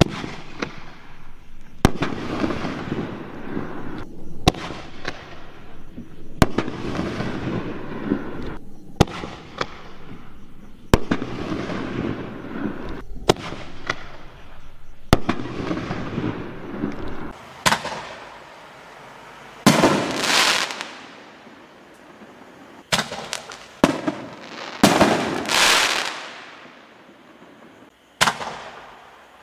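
5-inch consumer canister shells (aerial firework shells) launching and bursting: sharp bangs about every two seconds with rough noise filling the gaps between them, then, in the second half, several longer hissing bursts mixed with further separate bangs.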